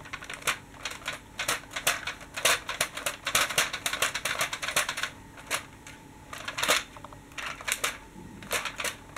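Plastic toy tram clicking and rattling as it is handled and turned over in the hand: many quick, irregular light clicks and taps.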